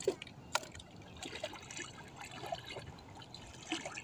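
Shallow seawater trickling and splashing lightly, with many small scattered drips and plinks and one sharper click about half a second in.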